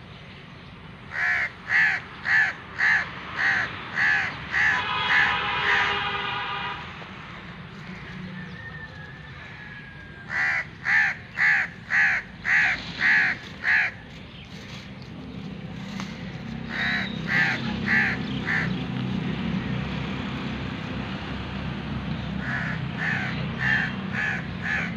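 Crows cawing in repeated series of short caws, about two to three a second, four runs in all, with a low hum rising under them in the second half.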